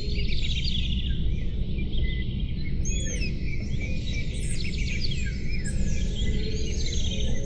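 Several small songbirds chirping and singing in overlapping short calls, trills and quick rising and falling whistles, over a steady low rumble.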